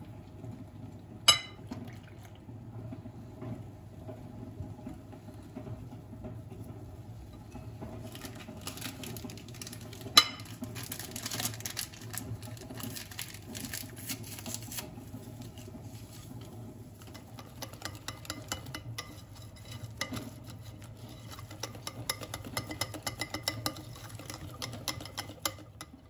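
Kitchen handling sounds while pancake batter is made in a glass bowl: milk poured onto the flour, and two sharp glass clinks, one about a second in and one about ten seconds in. A paper sachet is then torn open and rustles. From about two-thirds of the way in, a wire whisk beats the batter with quick, rhythmic taps against the bowl.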